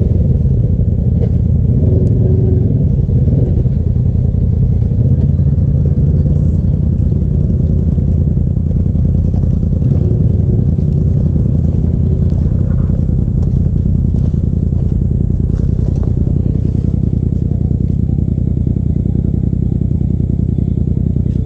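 Side-by-side UTV engine idling steadily and close by, with an even fast pulse that does not rise or fall.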